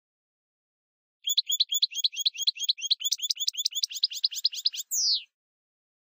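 A bird calling: a fast trill of about eight identical chirps a second, starting about a second in and running for nearly four seconds, ending in one falling note.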